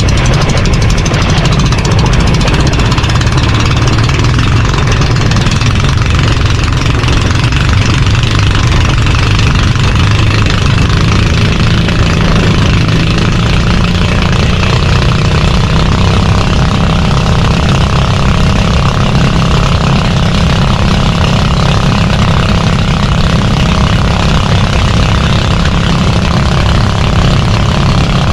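Engine of a motorized Philippine fishing boat (bangka) running steadily and loudly under way on a speed-test run, with a constant rush of noise over it.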